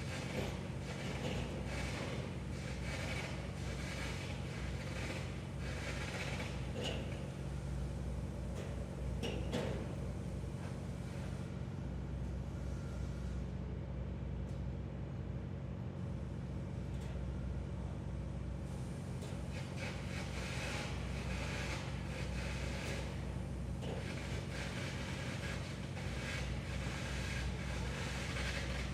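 Steady low mechanical rumble, like engines or heavy machinery running, with a hiss of noise above it. The higher hiss drops away for several seconds around the middle and then returns.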